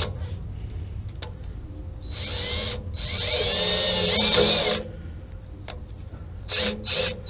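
Cordless drill boring a hole through the outer door of a gas water heater. It runs in several trigger bursts, the longest about two seconds, with the motor's whine rising and falling in pitch.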